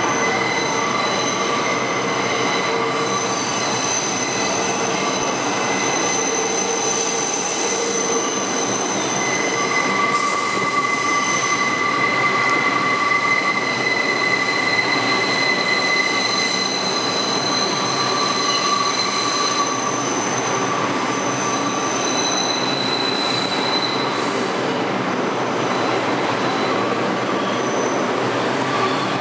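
Bombardier R142 subway train pulling into the station and running along the platform, a steady rumble of wheels on rail. Over it come several high, steady whining tones that start, stop and change pitch as the train slows.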